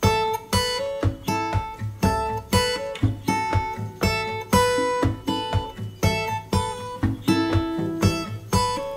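Background music: acoustic guitar strumming chords in a steady rhythm, about two strums a second over a low bass line.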